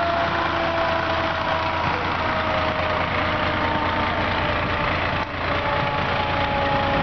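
Fire engine idling close by, a steady low engine rumble, with faint siren tones slowly falling in pitch over it.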